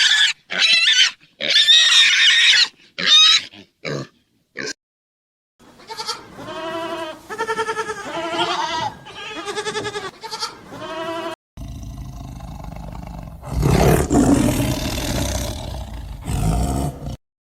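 A sequence of different animal calls. It opens with short, high-pitched cries. A run of repeated pitched calls follows, each about half a second long. About twelve seconds in, a rough, loud roar-like call with a low rumble takes over.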